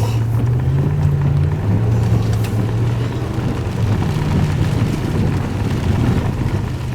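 Chase vehicle's engine running with a steady low hum and road noise, heard from inside the cab as it drives on.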